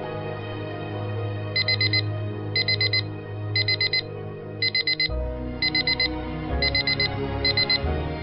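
Electronic alarm clock beeping in quick sets of four, about one set a second, starting about a second and a half in, over soft background music.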